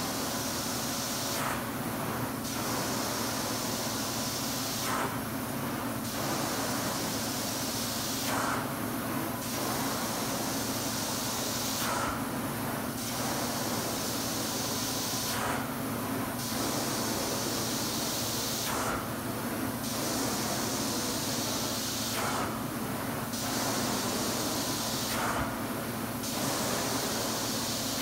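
Hot water extraction carpet cleaning wand drawn across carpet: a steady suction hiss and drone through the vacuum hose, the high hiss breaking off briefly about every three and a half seconds as each stroke ends.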